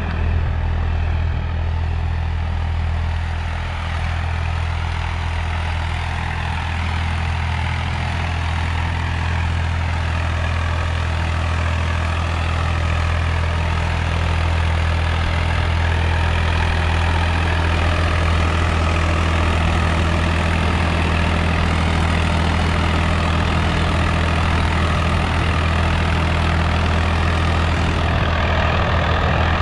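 Swaraj 855 XM tractor's three-cylinder diesel engine running steadily under load while pulling a disc harrow, growing a little louder over the second half as it draws near.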